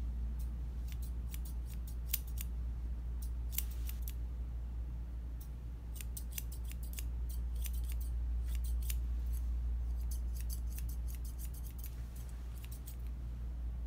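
Curved grooming shears snipping through a Bichon puppy's coat in quick runs of sharp clicks, over a steady low hum.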